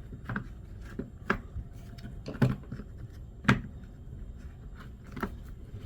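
Sharp plastic clicks and knocks, about five spread over a few seconds, as the opened plastic housing of an electric screwdriver is pulled apart and handled on a tabletop.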